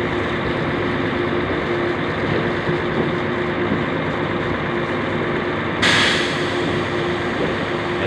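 High-pressure water spray hissing against a concrete mixer truck's drum over a steady engine drone with a constant tone; about six seconds in the spray hiss suddenly grows louder and brighter.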